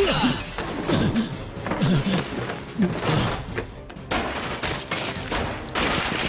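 A firefight: repeated handgun shots, coming faster and denser from about four seconds in, over a tense action music score.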